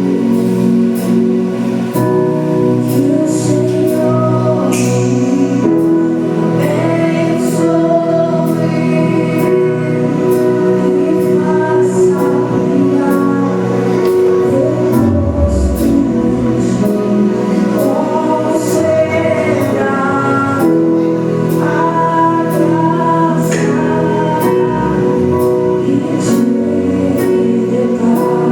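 Gospel worship song: a choir singing over instrumental backing with a steady beat.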